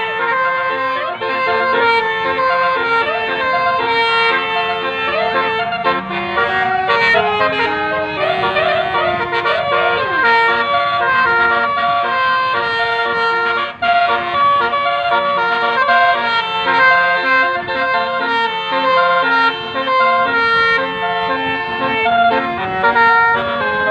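Bus telolet horn, a multi-tone musical air horn, playing a melody of stepped notes, with some siren-like sliding notes partway through.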